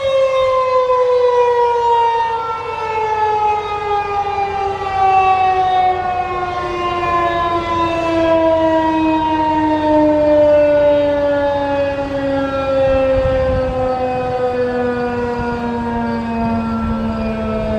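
Federal Signal 2001-130 rotating dual-tone warning siren winding down, its chord falling steadily in pitch throughout, with slow swells in loudness as the rotating horn sweeps past.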